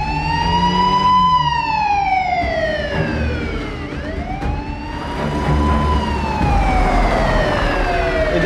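Police car siren wailing in two long sweeps: each climbs quickly, then falls away slowly over several seconds. A low rumble runs underneath.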